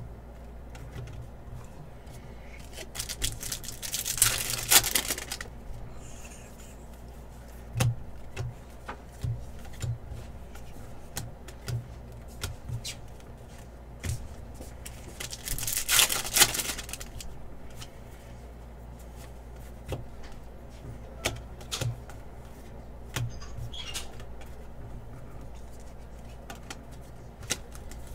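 Crinkly rustling of foil trading-card pack wrappers, twice for a second or two each, between soft taps and slides of cards being flipped through by hand.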